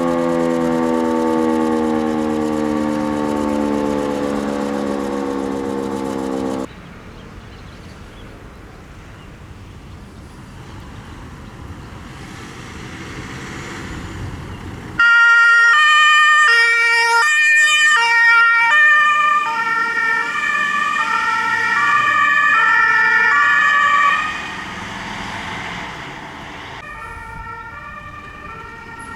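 An E57 electromechanical alarm siren winding down, its pitch falling steadily, cut off suddenly about seven seconds in. After a quieter stretch of background noise, a fire engine's two-tone horn starts loudly about halfway through, stepping back and forth between high and low tones, then drops away and carries on more faintly near the end.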